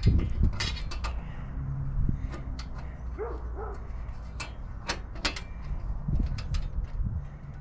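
Irregular sharp metallic clicks and taps of a wrench working the nuts on a solar panel's mounting frame as they are tightened.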